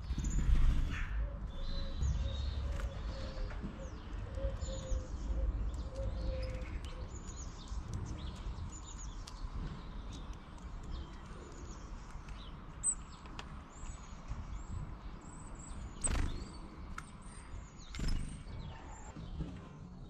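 Small garden songbirds chirping and calling repeatedly in quick short notes, over a low rumble that is strongest in the first few seconds. Two sharp clicks come later, one after about sixteen seconds and one after about eighteen.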